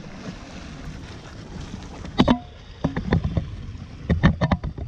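Wind buffeting the microphone over the wash of the sea against rocks. It is broken by three clusters of sharp knocks and clicks, about two, three and four seconds in.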